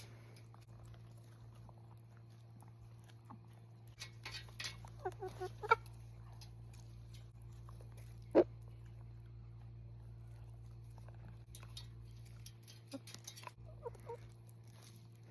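Pet chickens pecking, with soft pattering ticks and a few short clucking calls; two brief sharp calls, about six and eight seconds in, are the loudest sounds.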